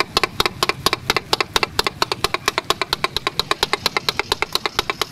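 Two flat metal spatulas striking a steel tawa as they chop chicken liver and onions for kaleji takatak: a fast, steady metallic clatter of about eight strikes a second.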